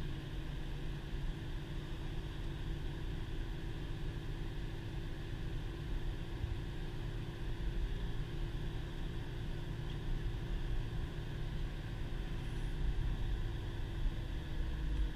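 Steady in-cabin noise of a 2010 Subaru Impreza cruising: a low engine hum under even tyre and road noise on a snow-covered road.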